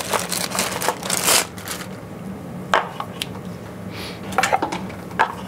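Clear plastic bag holding a coiled HDMI cable crinkling as it is handled, then a few light clicks and knocks about halfway through, and more rustling near the end.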